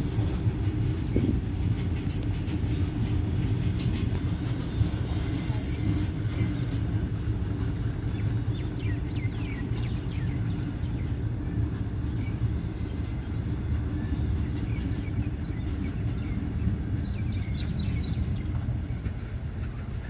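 Loaded open freight wagons rolling past at steady speed: a continuous low rumble of steel wheels on the rails that eases off slightly near the end as the brake van at the tail of the train goes by.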